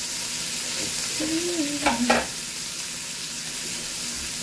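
Sliced onions, bell peppers, carrots and okra sautéing in hot oil in an aluminium pot, stirred with a spatula: a steady frying sizzle, with two sharp knocks about two seconds in.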